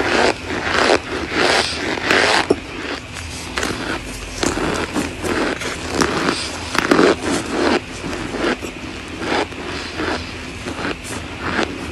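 Close-miked biting and chewing of compressed cornstarch chunks: crunching bites at an irregular pace, one after another.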